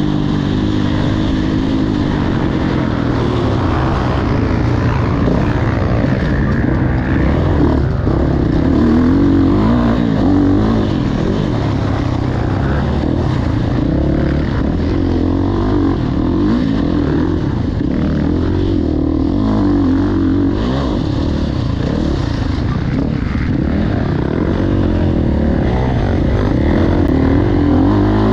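Honda motocross bike engine revving up and down continuously as it is ridden around a track, the pitch rising and falling with each burst of throttle.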